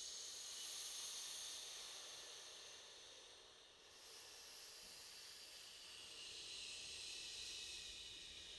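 Faint, steady high-pitched hiss, shifting slightly about four seconds in.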